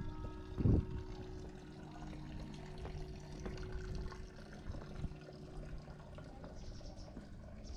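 A church bell's ringing dying away, its hum lingering for a few seconds, with a single low thump just under a second in.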